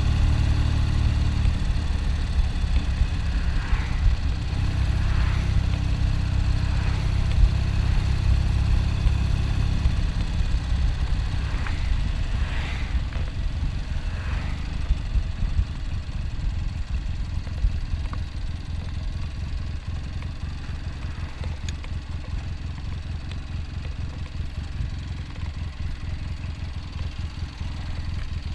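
1972 Triumph Tiger motorcycle's parallel-twin engine running steadily. Its note changes about a second in, and it grows gradually quieter.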